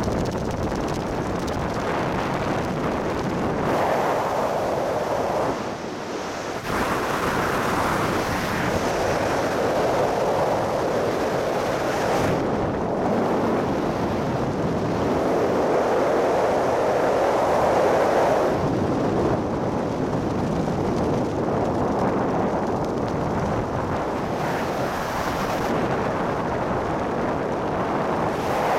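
Wind rushing over the skydiver's camera microphone while descending under an open parachute canopy, a steady noise that swells and eases every few seconds.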